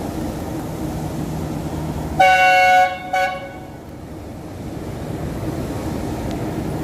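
Locomotive horn sounding two-toned about two seconds in: one blast of about half a second, then a short second toot, over the steady rumble of the slowly approaching train.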